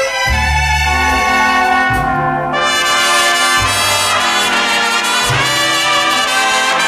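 Instrumental break in an old sung ballad: a brass section playing sustained chords over a low bass line that changes note every second or so.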